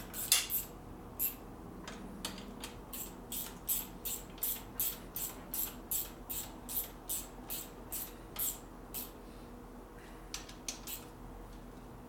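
Ratchet wrench clicking in a steady rhythm, about two to three strokes a second, with a couple of short pauses, as a generator mounting bolt is run in.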